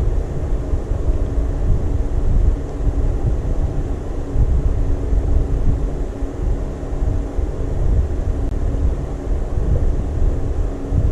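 Steady low rumble with a faint steady hum through it, like a machine running in the background.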